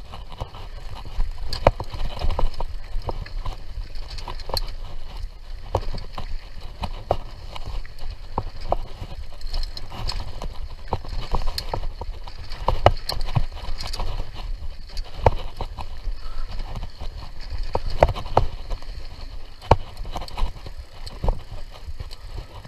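Mountain bike rolling over a rough dirt trail: irregular knocks and rattles from the bike over a steady low rumble.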